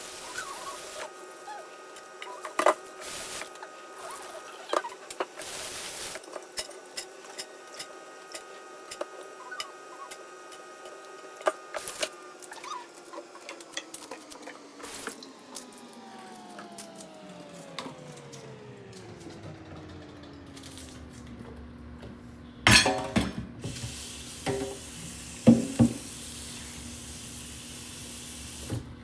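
Kitchen work: pots and utensils knocking now and then, with water running. Under it a steady hum slides lower in pitch about halfway through and then holds steady.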